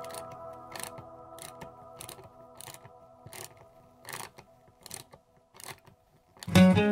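Hand screwdriver driving a 2¾-inch wood screw through a board: a sharp click about every two-thirds of a second as the driver is turned and reset, over faint background music. Loud acoustic guitar music starts near the end.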